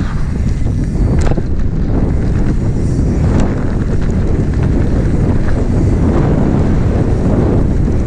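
Wind buffeting an action camera's microphone during a fast mountain bike descent on a dirt trail: a steady heavy rumble, with tyre noise and scattered sharp clicks and rattles from the bike over the bumps.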